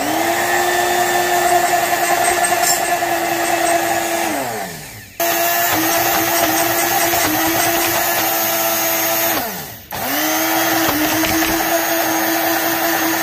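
Small personal blender motor running in three pulses with a steady whine. Twice it is switched off and the pitch sinks as it coasts down, then it restarts abruptly. The thick oat and pumpkin batter is not blending properly and needs more liquid.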